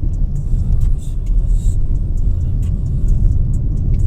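Car driving along the road, heard from inside the cabin: a steady low rumble of engine and tyres, with a few light ticks.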